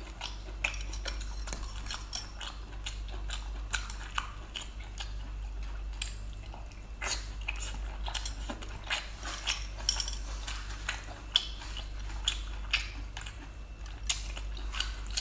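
Chewing of seafood mixed with many small clicks and clinks of metal skewers against a ceramic bowl, with a few sharper clinks about three quarters of the way in.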